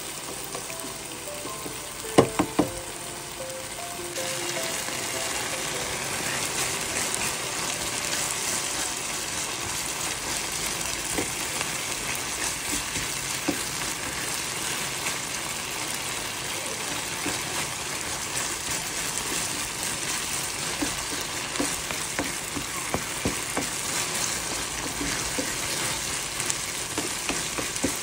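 A fiddlehead-fern and tomato curry sizzles steadily in a frying pan while a spatula stirs it, with small scraping clicks against the pan throughout. There are two sharp spatula knocks on the pan about two seconds in, and soft background music plays during the first few seconds.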